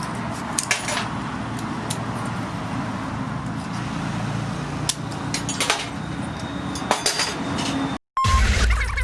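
Light metallic clinks and taps of steel tools over a steady background hum. About eight seconds in the sound cuts out briefly, then comes back louder.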